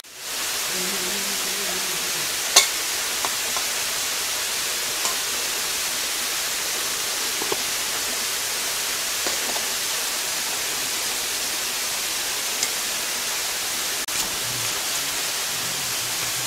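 Steady rush of nearby running water, a stream or waterfall, with a few small clicks over it.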